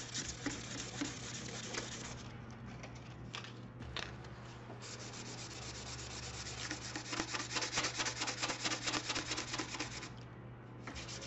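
Sandpaper rubbed back and forth by hand across a sheet of clear shrink plastic: a scratchy rasp of quick strokes, several a second, with short pauses about two seconds in and again near the end. One side is being scuffed to a frosted white so it will take colour.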